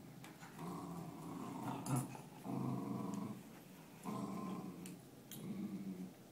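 Dogs growling in play during a tug-of-war over a rope toy, in four rough spells of up to a second and a half each. A brief sharp sound about two seconds in.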